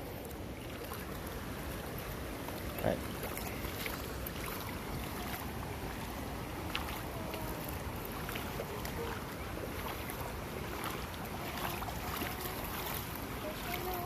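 Shallow creek water flowing and rippling steadily over a flat rock bed, a continuous rushing hiss.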